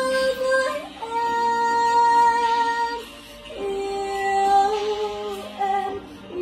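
A woman singing a slow Vietnamese ballad, drawing out long held notes. There is a short break about three seconds in, then a lower note held for about two seconds and shorter notes near the end.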